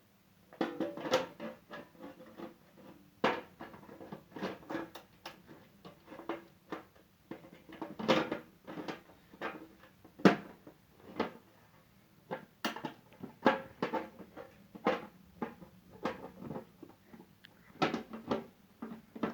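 Plastic housing parts of a sandwich toaster being handled and pressed back into place: a run of irregular clicks and knocks, one or two a second.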